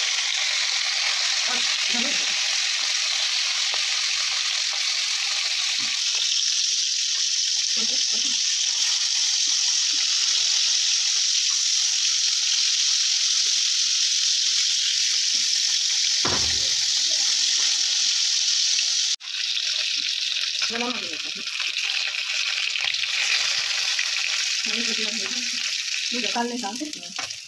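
Fish slices frying in hot oil in a steel wok, a steady high sizzle. There is a single low thump a little past the middle and a brief dropout soon after.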